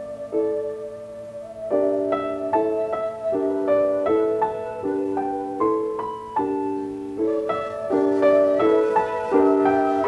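Piano music: a rocking figure of repeated chords, about two a second, with a melody moving above it. It grows louder about two seconds in.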